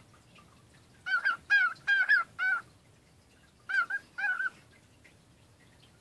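Cockatiel chattering: a quick run of about six short warbled calls a second in, then two more about four seconds in.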